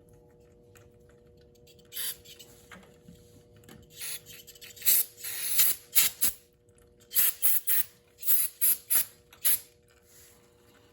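Aerosol brake cleaner spraying the engine's oil strainer screen clean, in hissing squirts: a short one, then a longer spray of about two seconds, then a run of short squirts.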